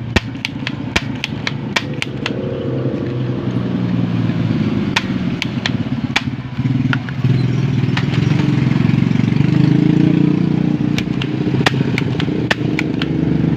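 Sharp clicks in quick runs of about three to four a second, near the start, about five seconds in and again near the end, over a steady low motor-like hum.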